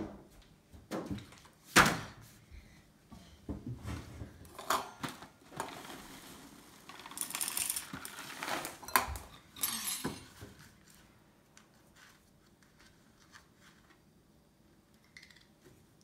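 Things being set down on a stone kitchen counter with sharp thunks, the loudest about two seconds in, then Cheerios poured from the box into a bowl, a rattling patter of about two seconds a little past halfway. It goes quiet for the last few seconds.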